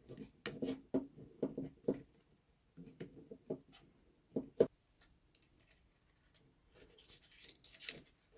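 Hand work on wiring: a run of sharp clicks and snips from small hand tools and wires, the loudest snap about halfway through, then a short rustle near the end.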